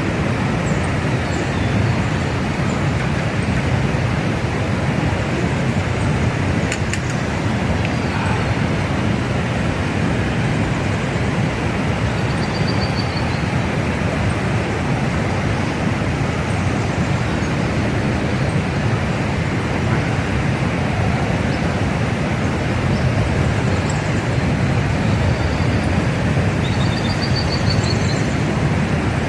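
Steady rushing of river rapids, with a few faint high chirps about halfway through and again near the end.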